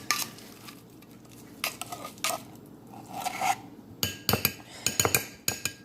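Metal utensil clinking and scraping against a bowl, with a quick run of sharp clinks in the last two seconds.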